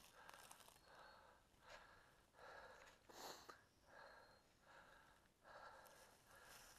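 Faint, rhythmic breathing of a hiker walking through the woods, a breath about every half second to a second, with a louder rustle of a step through dry leaves about three seconds in.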